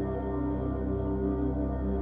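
Ambient background music: slow, sustained drone-like tones with a deep low bass, held steady without a beat.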